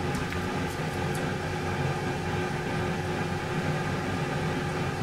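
Steady hum of a microwave oven running, with a faint held tone over it.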